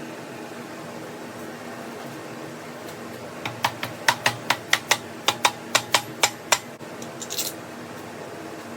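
About a dozen sharp clicks, roughly three or four a second, starting a few seconds in and stopping about two-thirds of the way through, over a steady fan-like hum. A brief hiss follows shortly after.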